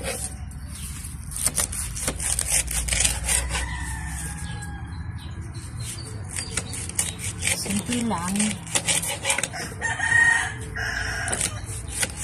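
A rooster crows about ten seconds in, over the repeated rasping strokes of a large knife slicing rolled taro leaves on a wooden cutting board.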